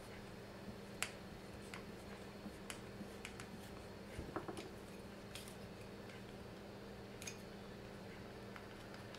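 Faint, irregular clicks and ticks of a small hand screwdriver turning an M3 bolt through a 3D-printed plastic part and its adjustment wheel, with a slightly fuller knock about four seconds in.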